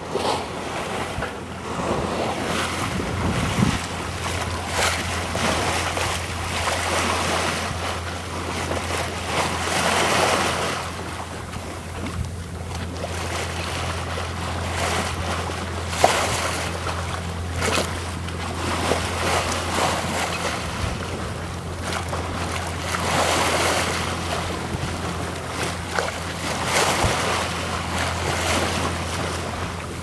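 Sea water rushing and splashing along the hull of a sailboat under sail, swelling every few seconds as the bow wave surges, with wind buffeting the microphone. A steady low hum lies underneath, and there is a single sharp knock about halfway through.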